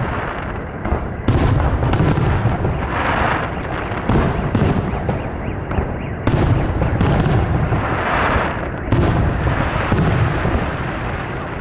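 Aerial firework shells bursting overhead in a series of about ten booms, irregularly spaced about a second apart, each trailing off in a low rolling rumble.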